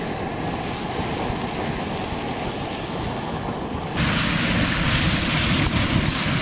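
Wind buffeting the microphone; about four seconds in, it gives way to a louder, brighter sizzle of prawns and vegetables stir-frying in a steel wok, with a few light clinks of a fork against the pan.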